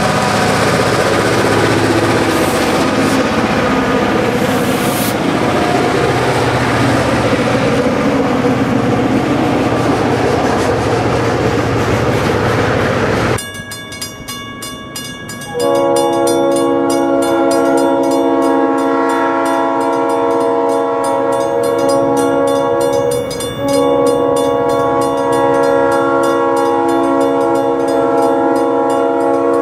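South Shore Freight diesel locomotives passing close by, engines running over the rumble of the wheels on the rail. After a sudden cut, a locomotive air horn sounds a chord in long blasts for a grade crossing, starting about 16 seconds in with a short break near 23 seconds, over a grade crossing bell ringing.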